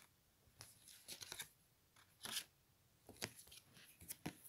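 Oracle cards being drawn and laid down by hand on a mat: a scattering of faint, short slides and soft taps of card stock.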